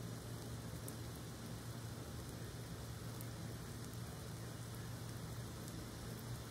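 Light, steady rain heard through a window, with faint scattered drop ticks over an even hiss and a low steady hum underneath.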